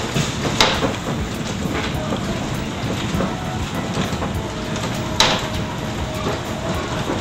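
Running noise of an elevated passenger train car heard from inside: a steady rumble and rushing hiss, with two sharp clanks, one about half a second in and a louder one about five seconds in, and a faint steady whine from about halfway.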